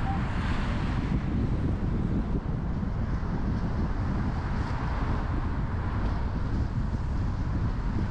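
Steady road noise from a car driving: a continuous low rumble with a hiss of wind.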